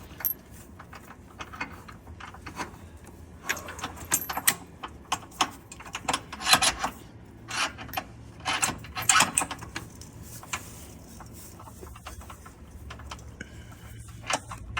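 Irregular metallic clinks and taps of bolts and hand tools being handled as engine-mount bolts are started, busiest in the first ten seconds and sparser after.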